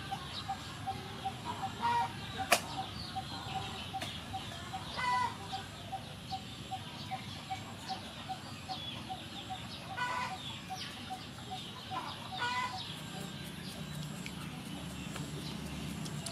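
Birds calling: one repeats a short, even note about two or three times a second, stopping a few seconds before the end. Other chirps and a few louder clucking calls, like a hen's, come and go. A knife knocks on a wooden cutting board, once sharply about two and a half seconds in.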